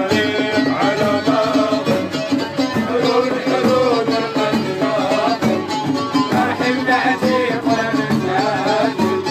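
Traditional-style folk music: a wavering melody line over a steady percussion beat.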